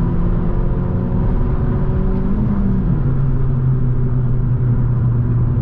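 Chevrolet Cruze 1.4 turbo four-cylinder engine, heard from inside the cabin through an aftermarket exhaust with downpipe and only the intermediate muffler left. It pulls with a gently rising pitch, then about three seconds in drops to a lower steady drone, as on a gear upshift.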